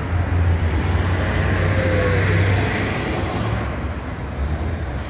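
Street traffic: vehicles running and passing, with a low rumble that is heaviest for the first two and a half seconds or so.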